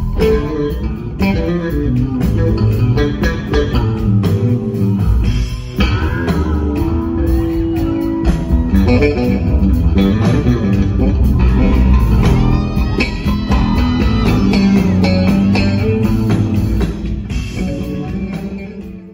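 A live rock band playing loudly, with an electric bass guitar line prominent and electric guitar notes bending in pitch above it.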